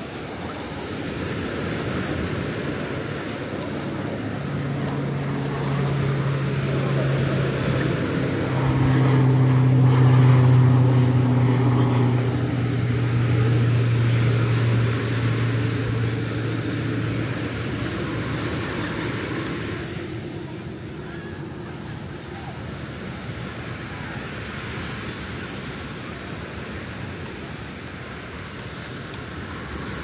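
Ocean surf washing steadily onto the beach. From about four seconds in, a low engine hum swells, is loudest around ten seconds, and fades out by about eighteen seconds, as of a motor passing by.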